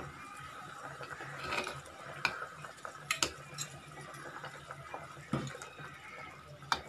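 Steel ladle stirring prawn curry in a stainless steel pot, with several light clinks of metal on metal at irregular moments.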